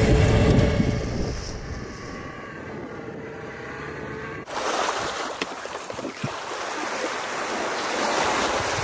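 Wind buffeting the microphone over boat and water noise, fading after about a second; then, after a sudden cut about four and a half seconds in, a steady rush of waves.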